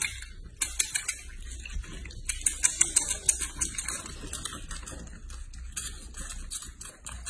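Piglet sucking at a milk bottle's teat, giving quick sharp clicks in irregular runs of several a second. A faint low hum underneath.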